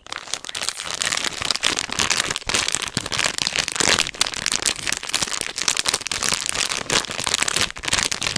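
Pink plastic candy wrapper crinkled in the fingers right up against an ASMR microphone: dense, continuous crackling with a few brief pauses.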